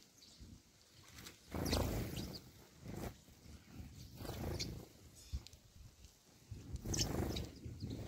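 Sparrows giving a few short, scattered chirps, with wind rumbling on the microphone in two gusts, about a second and a half in and again near the end.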